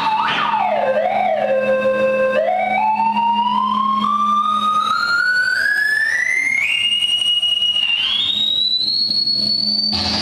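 Analog synthesizer tone that dips and wobbles in pitch, then sweeps slowly upward over about eight seconds into a high whine, over a steady low hum. A harsh noise cuts in near the end.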